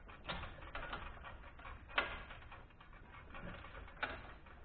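Socket ratchet clicking in short irregular runs as the cylinder head bolts of a Kohler K241 engine are snugged down, with one sharper click about two seconds in.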